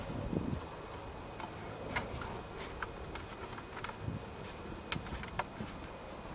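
Scattered light clicks and taps of hands fitting a plastic spigot and its washers through the wall of a plastic bucket, with a couple of dull knocks against the bucket.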